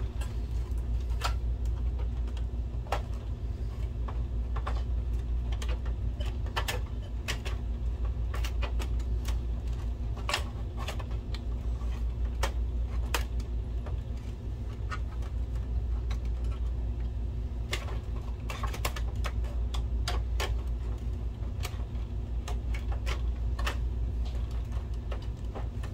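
Scattered clicks and taps of a metal-caged projector power supply and its wires being handled and pressed into a plastic chassis, over a steady low hum.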